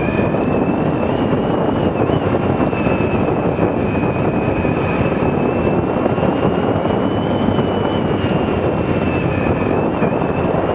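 Motorcycle riding over cobblestones at about 30 km/h, heard from a camera on the bike: a steady, loud rumble of engine and tyres, with a high whine that drifts gently in pitch and dips briefly twice.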